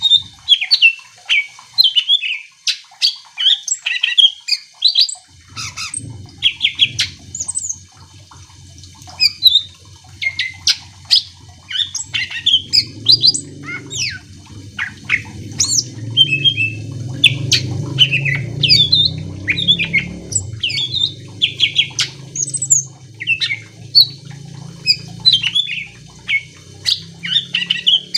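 Cucak ijo (green leafbird) singing a fast, varied run of short chirps and gliding whistles. From about five seconds in, a low steady rumble runs underneath.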